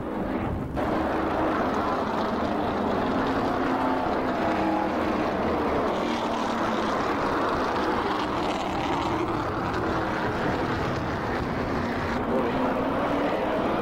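A pack of NASCAR Modified race cars running at speed. Their V8 engines make a steady din, with engine notes that bend up and down as the cars go by.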